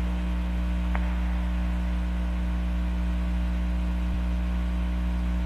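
Steady low electrical hum, a buzz of several unchanging low tones over faint hiss, with one faint click about a second in.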